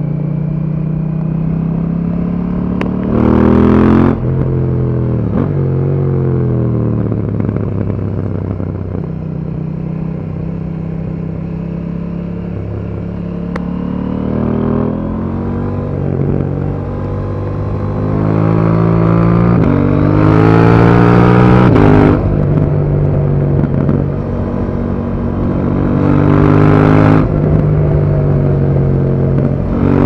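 KTM 790 Duke's parallel-twin engine under way, its pitch climbing and dropping repeatedly as it accelerates, shifts and rolls off. The loudest surges come about three seconds in, around twenty seconds and near twenty-six seconds.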